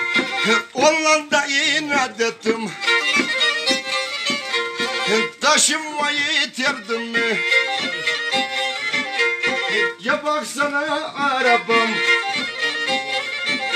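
Karadeniz kemençe, the Black Sea three-stringed bowed fiddle, playing a folk tune.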